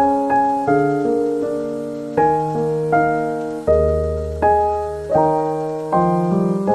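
Background piano music: chords struck about every three-quarters of a second, each fading until the next.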